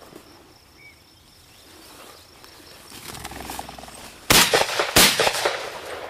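Two shotgun shots about 0.7 seconds apart, fired at a flushed quail, each trailing off briefly.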